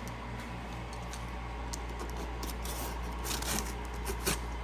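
Cardboard packaging being opened by hand: scraping, rubbing and cutting noises with a few sharper clicks, over a steady low hum.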